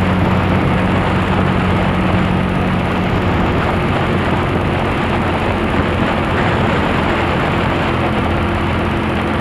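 Motorcycle riding at a steady cruising speed: a steady low engine hum under heavy, continuous wind noise on the microphone.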